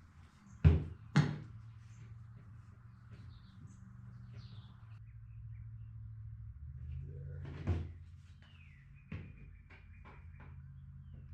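Sharp knocks of brad nails being driven into wooden bird-feeder pieces during glue-and-brad assembly: two loud ones about half a second apart near the start, another about two-thirds of the way through, then a lighter one followed by a few small ticks. Faint bird chirps near the end.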